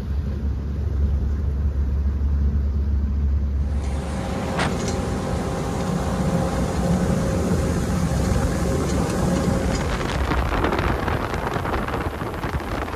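Boat motor running steadily with wind noise. About four seconds in the sound changes abruptly to a brighter, hissier run with a steady hum, as if at a cut.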